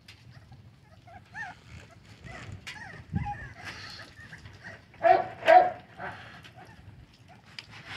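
Young American bully puppies whining with short high gliding calls, then giving two short barks about five seconds in.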